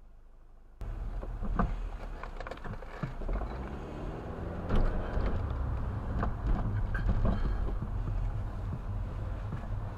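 Car driving, heard from inside the cabin: a steady low rumble of engine and tyres with frequent short knocks and rattles, starting abruptly about a second in.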